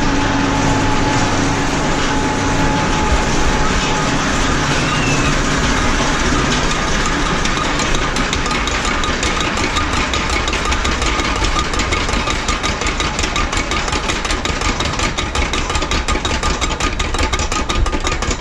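The Vampire suspended roller coaster's train rumbling and rattling along its track, heard from on board. About halfway through, a rapid clicking clatter sets in and keeps going.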